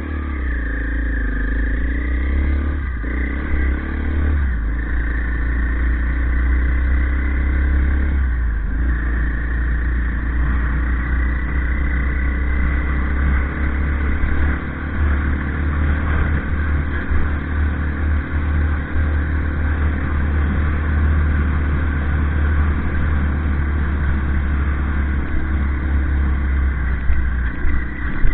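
Off-road motorcycle engine pulling away and shifting up through the gears, its pitch climbing and then dropping at each change over the first eight or nine seconds. It then runs at a fairly steady cruising speed, with a heavy low rumble underneath.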